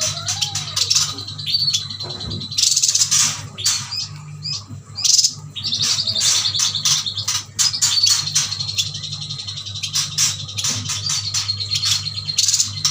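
A group of chestnut-crested yuhinas chirping rapidly and without pause, with a thin high note held for a second or so at times, over a steady low hum.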